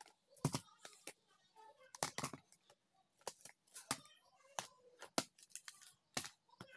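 Small plastic parts boxes and clear plastic bags being handled and shuffled on a shelf: irregular sharp clicks and knocks of hard plastic cases against each other, with some crinkling of plastic.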